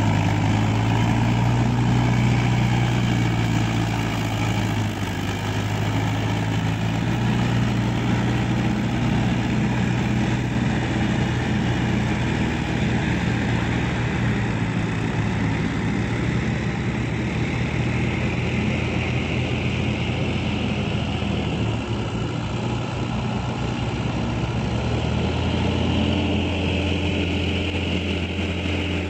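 Diesel tractor engine running steadily under load as it drives a rear rotary tiller through wet paddy mud. The engine note drops and changes a little near the end.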